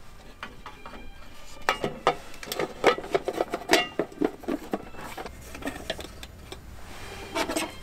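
Irregular clicking and clinking of small hard objects being handled, busiest in the middle, with a few brief ringing clinks.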